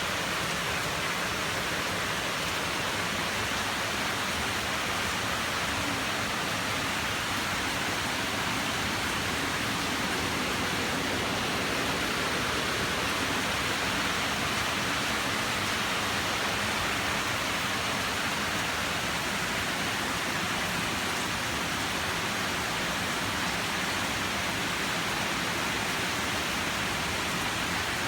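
A steady, even rushing noise that holds the same level throughout, with no distinct events in it.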